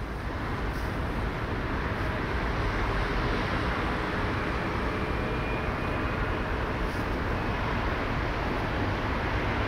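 Steady low engine rumble with a hiss over it and a few faint whining tones, growing slightly louder in the first couple of seconds.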